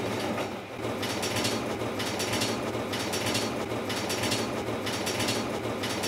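Microwave oven running with a metal-rimmed cup inside: a steady low hum with irregular crackling on top, the sound of the metal rim arcing.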